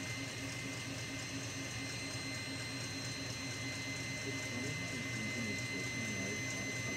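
Steady room tone: a low hum with a thin, constant high whine, and faint murmuring voices in the second half. No distinct cracking or handling sounds stand out.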